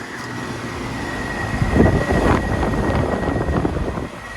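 Central air conditioner condensers running: fan air rushing with a steady high whine, and a low rumbling noise that swells in the middle and eases near the end.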